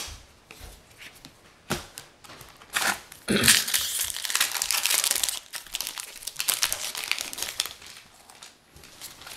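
Foil wrapper of a Magic: The Gathering booster pack crinkling and being torn open by hand, after a couple of seconds of light handling clicks. The loudest, densest crinkling comes about three seconds in and lasts a couple of seconds, then thins to scattered crackles.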